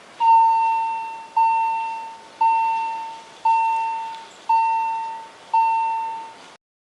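Level crossing warning bell ringing six slow strokes, about one a second, each a clear ding that dies away: the crossing signalling an approaching train.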